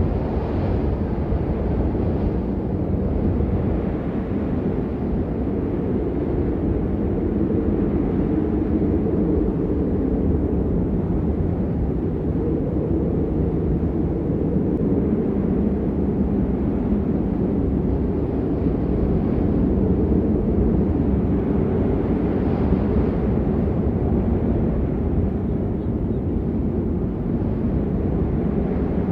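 Steady rain, a dull even hiss that is mostly low rumble with little high-pitched patter.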